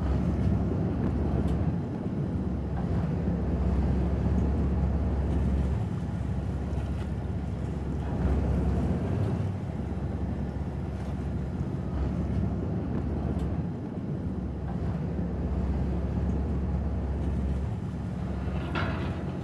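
Boat motor running under way, a steady low rumble, with wind buffeting the microphone and water noise.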